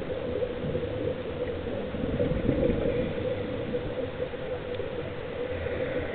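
Muffled underwater water noise heard through a camera's waterproof housing, a steady rumble with a constant hum running under it.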